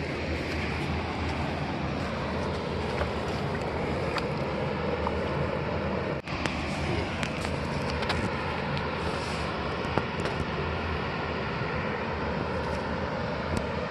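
Steady wind noise on the microphone over a low, steady hum, with a few faint clicks.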